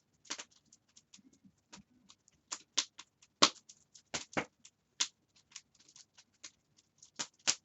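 Wood fire crackling in an open fireplace: irregular sharp snaps and pops, a handful of them louder.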